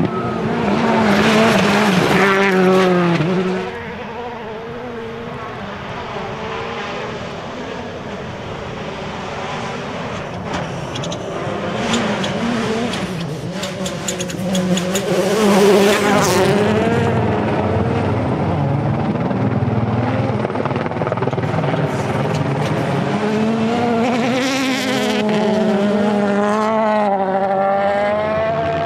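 Hyundai i20 Coupe WRC rally cars on loose gravel, their turbocharged engines revving hard and climbing and dropping in pitch through gear changes, over a steady hiss of tyres and flying gravel, in several passes one after another.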